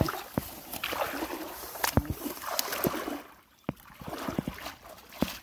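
Shallow lake water sloshing and splashing as a person wades through it and pushes a metal basin along the surface. Several sharp knocks are scattered through it.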